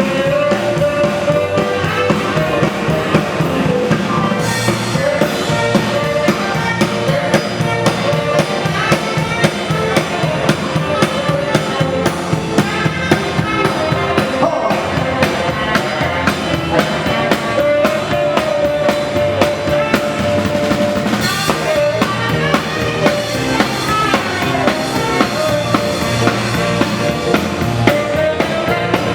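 Instrumental music with a steady drum-kit beat and a held melody line, with no singing.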